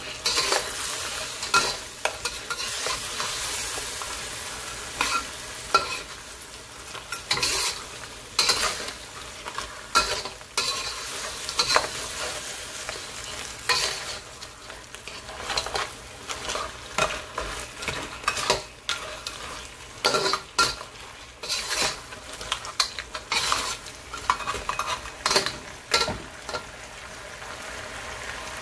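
Lobster pieces sizzling in a thickening sauce in a metal wok, with a metal spatula scraping and knocking against the wok in frequent, irregular strokes as it stirs.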